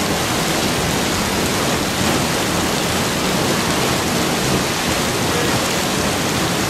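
Steady rush of river water, an even, unbroken hiss.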